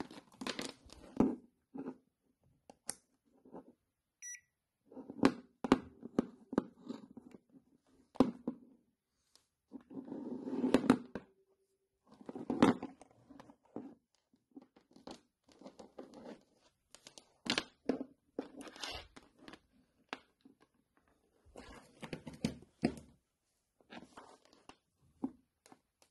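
Handling noise from a charger cable, a digital multimeter and its test leads: scattered clicks, knocks and rustles, with a short high beep about four seconds in.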